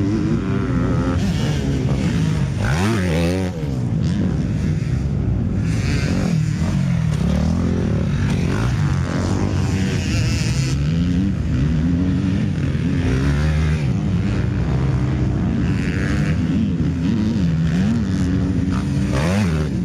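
Several motocross bikes running around a dirt track. Their engine pitch rises and falls over and over as the riders accelerate, shift and ease off, with the engines overlapping.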